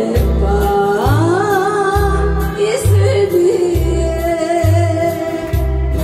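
A woman singing a Korean popular song into a microphone, her voice wavering in vibrato and gliding between notes. She is accompanied by acoustic guitar and a steady low bass beat, a little under one beat a second.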